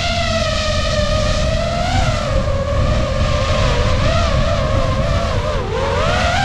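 DJI FPV drone's motors and propellers whining in flight, the pitch wavering up and down with the throttle and dipping sharply near the end, over a low rumble of wind and prop wash.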